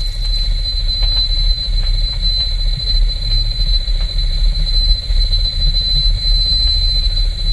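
A steady, loud low rumbling drone under a constant high-pitched whine, with a few faint ticks.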